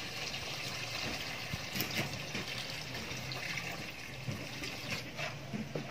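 Water poured steadily from a metal bucket onto dry cement powder, wetting it for mixing a pure-cement finishing coat.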